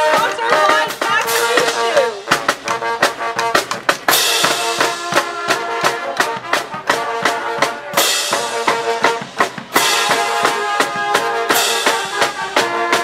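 Marching band playing: trumpets, saxophones and sousaphones holding notes over a steady beat of snare and bass drums, with a cymbal crash three times.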